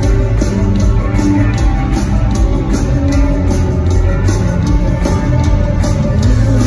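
Live rock band playing: electric guitars and bass over a drum kit, with a steady, regular cymbal pulse.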